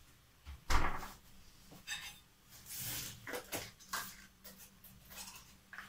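A refrigerator door pushed shut with a thud under a second in, followed by light clicks and a brief rustle of a spoon and a small plastic tub being handled at a table.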